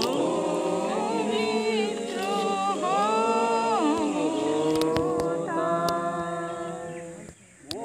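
Voices singing without instruments, holding long notes and sliding between pitches, with a short break near the end.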